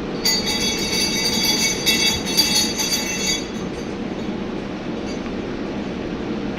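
Large handmade steel sleigh bell, a ball bearing rattling inside, shaken and ringing with several high metallic tones for about three seconds before it stops. A steady low rushing noise runs underneath throughout.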